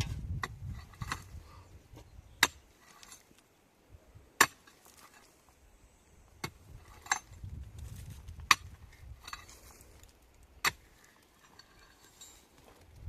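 Scattered sharp clinks and knocks of hard objects, about six of them one to two seconds apart, over a faint low rumble.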